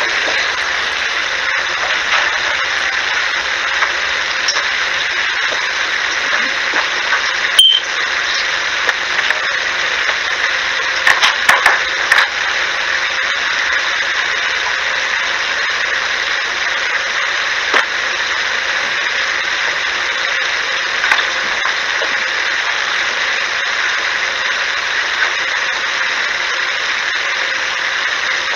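Steady, loud static hiss with a few short clicks scattered through it, a few at about eight seconds in, a cluster around eleven to twelve seconds, and single ones near eighteen and twenty-one seconds.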